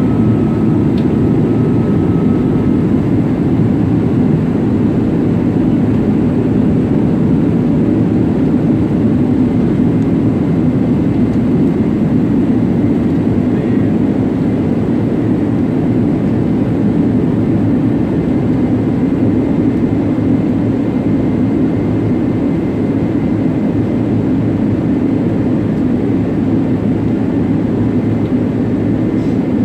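Steady airliner cabin noise, the hum of the jet engines and rushing airflow heard from inside the passenger cabin during the descent.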